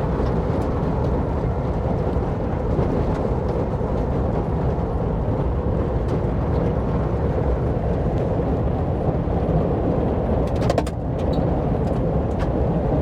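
1958 Volkswagen Bus driving on a rough dirt trail, its air-cooled flat-four engine running steadily under the road noise, with a brief clatter of sharp clicks near the end.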